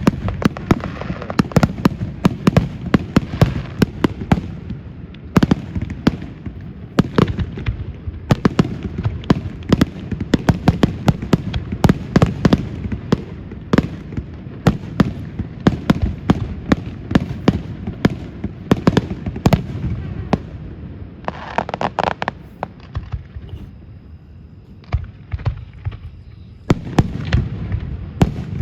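Aerial fireworks bursting in rapid succession, several bangs a second over a constant low rumble. The bursts thin out a little past twenty seconds in, then pick up again near the end.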